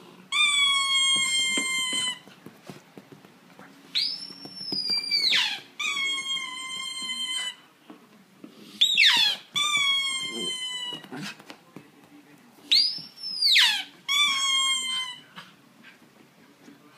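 Italian greyhound howling in high-pitched 'singing'. Four long, level notes of one to two seconds alternate with three shorter wails that rise steeply and then fall away.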